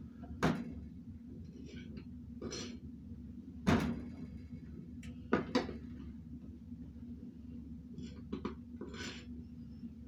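A metal measuring cup and knife knocking and scraping against a plastic flour bin and a glass mixing bowl as flour is scooped, levelled and tipped in. There are a few sharp knocks, the loudest a little under four seconds in, and short soft scrapes over a steady low hum.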